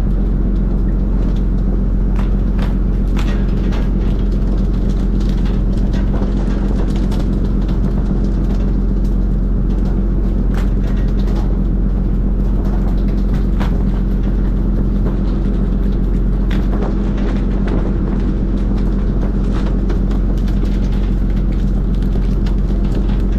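Fishing boat's engine and machinery droning steadily at a low pitch, with scattered sharp knocks and slaps as skipjack tuna are swung aboard and land on the deck.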